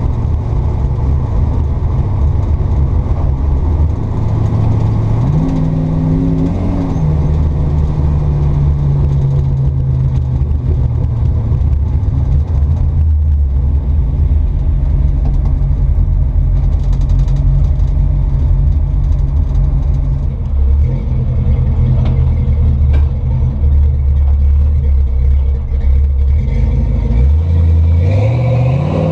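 1956 Chevrolet pickup's engine droning steadily at cruise, heard from inside the cab, with a brief rise in pitch about five seconds in. Near the end the engine revs up, climbing in pitch as the truck accelerates.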